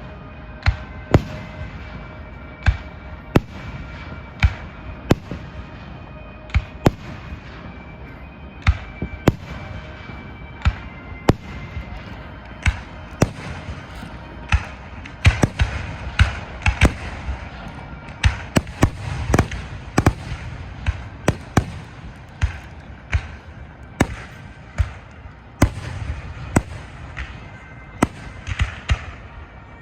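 Aerial fireworks display: a long irregular run of sharp bangs and booms, several a second at times, with a denser volley about halfway through.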